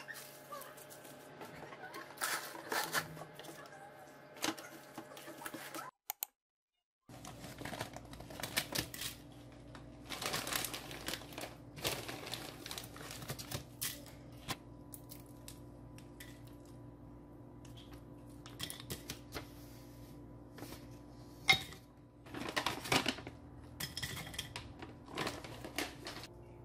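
Plastic wrap and paper crinkling as they are handled. After a short break, dry slices of herbal root and dried jujubes are dropped into an empty slow-cooker crock, with scattered light clicks and clatters. A steady low hum runs under the clicks.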